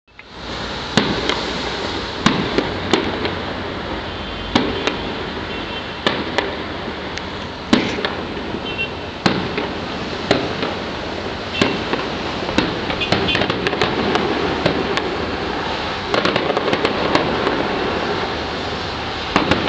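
Aerial fireworks display: irregular sharp bangs of bursting shells, about one a second, over a continuous crackling haze.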